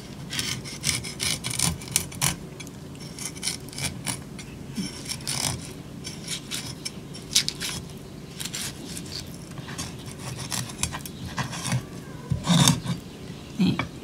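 Cleaver blade slicing a sardine fillet away from the backbone on a wooden cutting board: many short, irregular scraping strokes of steel against fish and wood.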